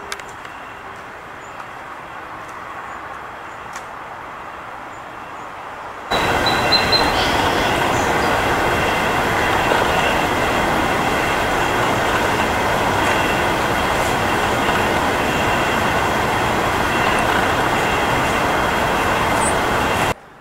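Steady rushing, rumbling background noise, much louder from about six seconds in, then cutting off abruptly just before the end.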